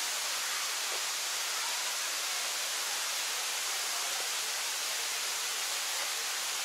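Small waterfall cascades rushing over rocks in a forest stream, a steady, even hiss of falling water.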